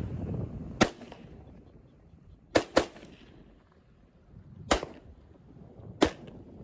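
Springfield Armory Saint AR-15 rifle in 5.56/.223 firing five single shots: one about a second in, a quick pair about two and a half seconds in, then one near five seconds and one at six. Wind rumble on the microphone dies away in the first second.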